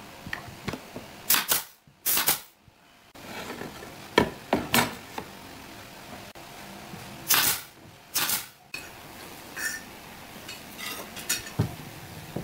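Pneumatic brad nailer firing into the corners of a pine frame: four sharp shots in two pairs, one pair early and one about six seconds later. Lighter knocks and clicks of wood and a metal square on the workbench come between them.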